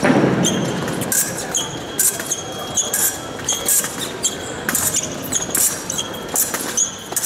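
Fencers' shoes squeaking on the piste during footwork: many short, high-pitched squeaks at an irregular pace, with a dull thump right at the start.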